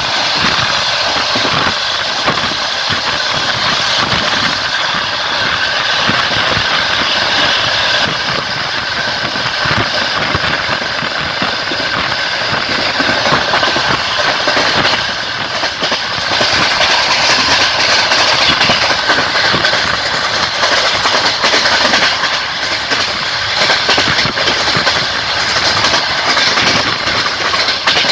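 Passenger train running at speed, heard from aboard a carriage: a steady rolling and rushing noise with the clatter of wheels over the rail joints.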